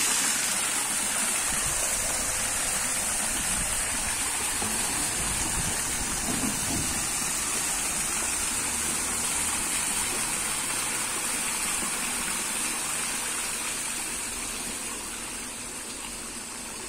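Swimming-pool cascade pouring a sheet of water into the pool: a steady rush of falling water that slowly grows quieter over the last few seconds.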